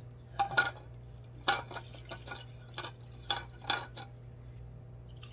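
A utensil clinking against a food dish, about six short, sharp, irregular clinks, as dog food is being dished out.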